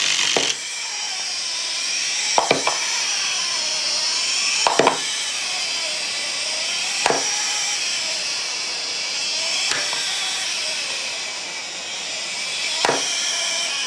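Clockwork wind-up toys running: a steady whir of their spring-driven gears, with a sharp clack about every two and a half seconds, five times in all, as a toy tips over and lands.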